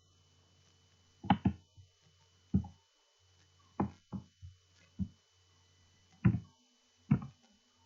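Computer mouse clicking: about seven short, sharp single clicks spaced roughly a second apart, over a faint low electrical hum.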